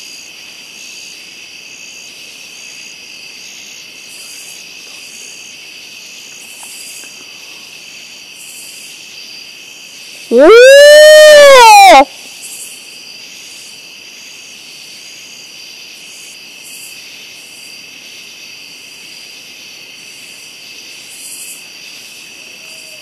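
Steady night chorus of crickets and other insects, cut about ten seconds in by one very loud, drawn-out whooping call that rises and then falls in pitch for about a second and a half. Those listening say the call is not an owl.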